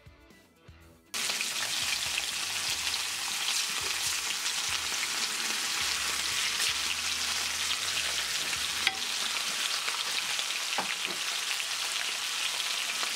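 Flap steak slices frying in hot butter in a cast-iron pan: a dense, steady sizzle that starts suddenly about a second in, with a few small crackles.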